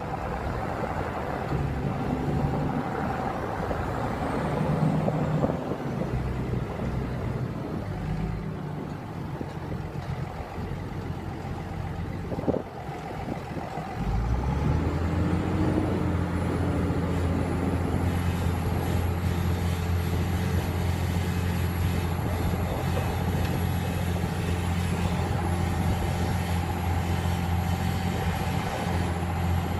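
Tractor engine running steadily, pulling a plough. About twelve seconds in there is a short sharp click, and from about fourteen seconds the engine's low drone turns louder and steadier.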